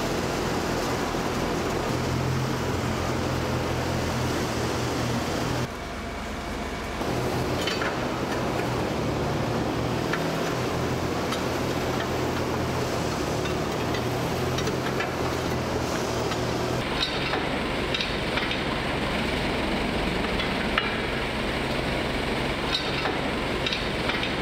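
A vehicle engine running steadily, with scattered metallic clinks as the Valentine tank's steel track links and tow chain are dragged across the workshop floor.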